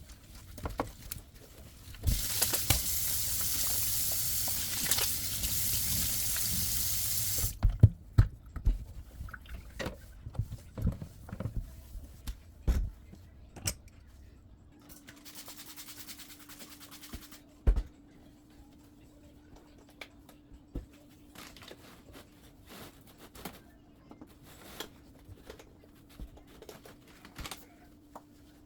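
Kitchen sink tap running, shut off abruptly about a third of the way in, followed by scattered clinks and knocks of dishes being washed and handled. Later a faint steady hum sits under the occasional clatter.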